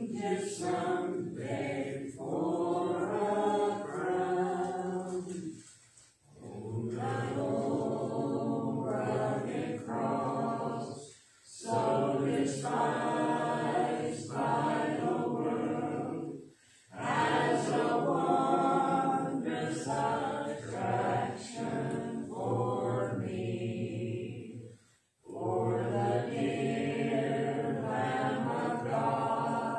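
Congregation singing a hymn a cappella, many voices together with no instruments, in sung lines separated by four brief pauses for breath.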